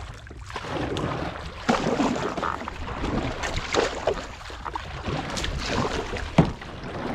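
Canoe being paddled: irregular paddle strokes and water splashing, with wind rumbling on the microphone and a sharp knock about six seconds in.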